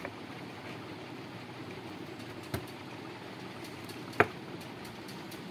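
Two sharp clicks about a second and a half apart, the second louder, from hands working the wires of a replacement transformer, over a steady background hum.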